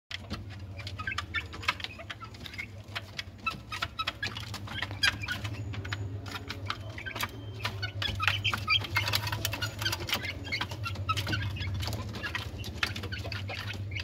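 Bantam chickens clucking and chirping, with many sharp clicks and taps, over a steady low hum.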